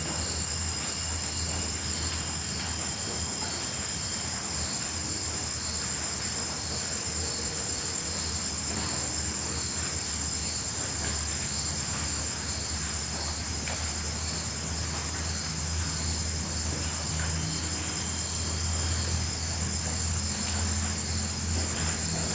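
Crickets and grasshoppers calling in a continuous high-pitched trill, with a slower pulsing chirp just below it, over a steady low rumble.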